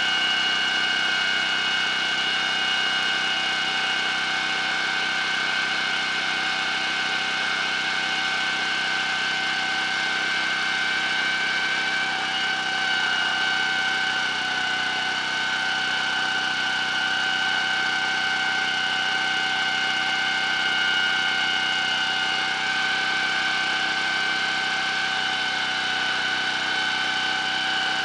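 Small Honda petrol engine running steadily, spinning the motorcycle's front wheel fast while the front brake is held lightly on, so the shoes, coated in fine grinding paste, rub the high spot of the slightly out-of-round drum that causes brake judder. A steady whine throughout, its pitch dipping slightly near the end.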